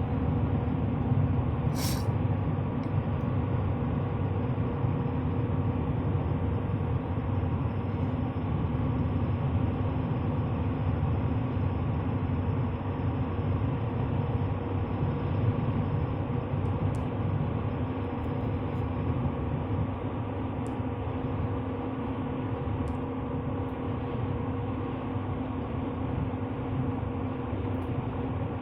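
Cab noise of a 2015 Chevy Silverado 3500 with the 6.6-litre Duramax V8 turbodiesel, heard from inside: a steady engine drone over a low rumble that eases slightly in level about two-thirds of the way through.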